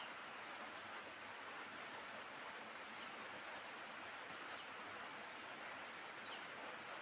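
Steady, soft background hiss of ambient noise, with a few faint, short, high chirps scattered through it.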